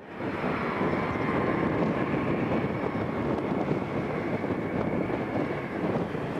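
McDonnell Douglas MD-11 three-engine cargo jet coming in to land: a steady jet-engine whine over a broad rush of engine and air noise.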